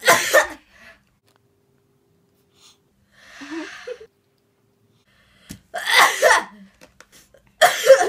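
Young women sneezing, set off by twisted tissue spills tickled inside the nostril: a sharp sneeze right at the start, another about six seconds in, and a third just before the end. A softer breathy sound comes around three and a half seconds, between the first two.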